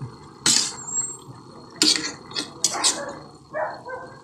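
A spatula stirring chunks of breadfruit in a simmering pan, with several sharp scrapes and knocks against the pan. A short pitched sound comes near the end.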